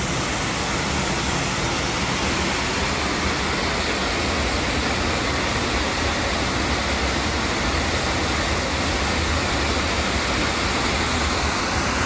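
Waterfall: water pouring over rock ledges into a pool, a steady rushing noise.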